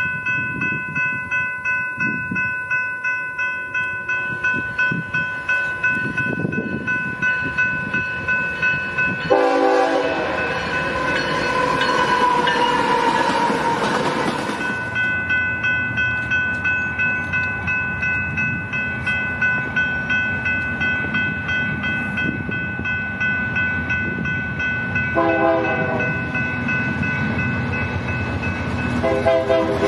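Railroad crossing bell ringing steadily, about two strokes a second, while diesel freight locomotives approach. The train horn sounds a short blast about nine seconds in and two more near the end, and for a few seconds after the first blast the rumble of the passing train covers the bell.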